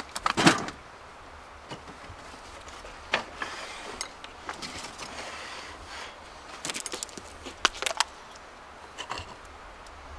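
Handling noise: a louder knock about half a second in, a scraping rustle a few seconds later, and scattered clicks and knocks throughout.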